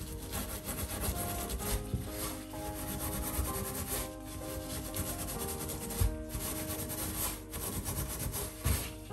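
Metal spiral scourer scrubbing a stainless steel gas hob around a burner: a continuous scratchy rubbing, with a few low knocks, the loudest about six seconds in. Soft background music underneath.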